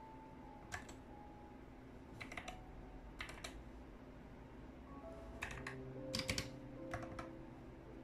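Keys pressed on a Gamakay MK61 keyboard fitted with Gateron optical yellow linear switches. A handful of sharp clacks come singly and in quick clusters, spread over several seconds, over quiet background music.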